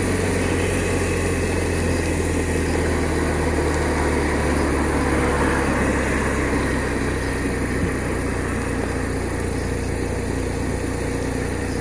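BMW R1200RT motorcycle's flat-twin boxer engine running steadily as the bike rides through traffic on a wet road, over a steady rush of road noise.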